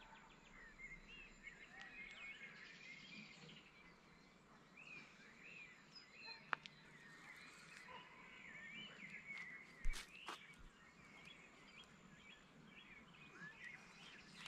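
Faint outdoor birdsong: many short chirping and warbling phrases from small birds. Two sharp clicks stand out, about six and ten seconds in.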